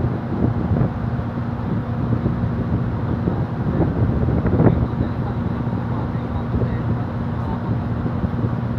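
Passenger ferry's engines running with a steady low drone, with wind rushing over the microphone and a gust about halfway through.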